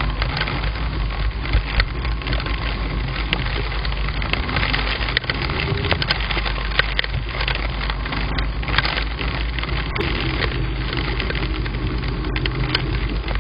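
Heavy rain, with a dense crackle of large raindrops clicking against the microphone and nearby surfaces, heard through a low-quality camera microphone.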